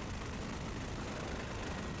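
Steady engine and rotor noise of a helicopter, heard from the aircraft doing the filming.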